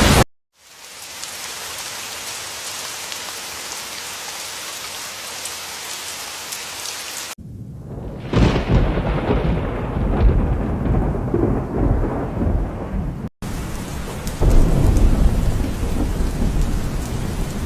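Steady rain falling. About eight seconds in, a clap of thunder breaks and rolls on as a rumble over the rain, and a louder stretch of rain with low rumbling follows. The sound cuts abruptly between these parts.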